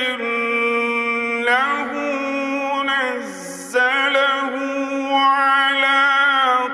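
A man reciting the Quran in the melodic mujawwad style, holding long drawn-out notes with small ornamental turns of pitch. About three seconds in, the voice dips low and breaks briefly, then the held note resumes.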